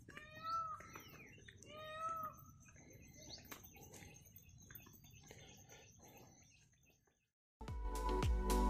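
Two faint, short meow-like animal calls about a second and a half apart, each arching up and down in pitch, among scattered high bird chirps and a thin steady high whine. The sound then drops to near silence before music starts near the end.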